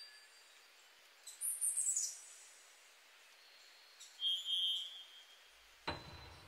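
Birds chirping in a few separate short, high calls: one falls in pitch about a second in, and a cluster of high notes follows about four seconds in. Near the end a sudden, fuller sound sets in.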